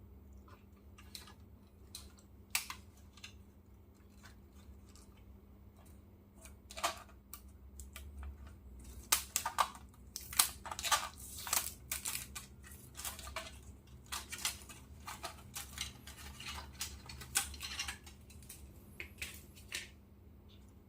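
Hands handling a 1:18 scale diecast model car: a run of small clicks, taps and rustles, busiest around the middle, over a faint steady low hum.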